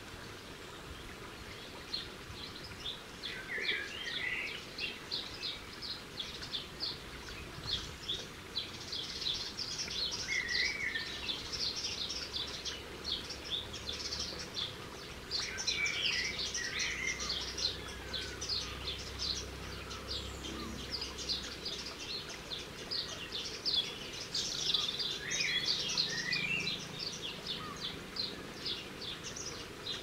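Garden birds chirping and calling: a dense run of short, high chirps starting about two seconds in, with a few lower, warbled phrases now and then.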